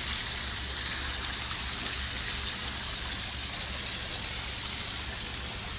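Thermal spring water spilling in a cascade over an encrusted terrace wall into the pool below, giving a steady rushing splash.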